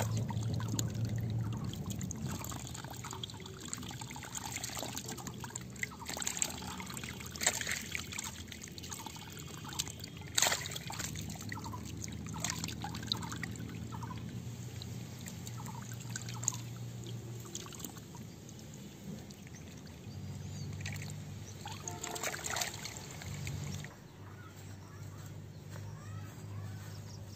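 Water trickling and pouring through a mud channel into a fish trap, with occasional sharp splashes. A low hum comes and goes underneath.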